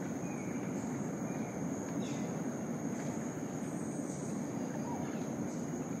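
Rainforest ambience: a steady high-pitched insect drone over an even rushing noise, with a few short, faint bird chirps scattered through.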